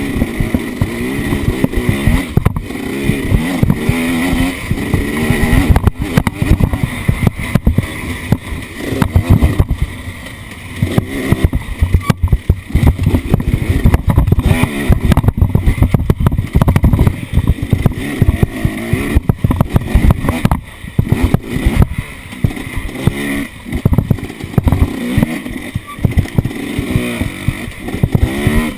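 Off-road vehicle engine running and revving unevenly over rough ground, with repeated jolts and heavy rumble buffeting the microphone.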